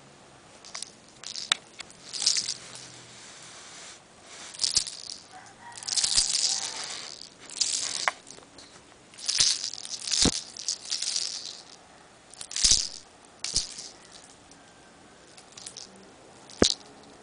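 A kitten playing with a potted catnip plant: irregular bursts of rustling and rattling, with a few sharp taps.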